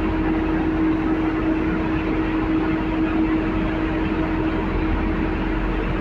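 Patrol boat under way: its engines run with a steady low rumble and a constant hum, over an even rush of wind and water along the hull.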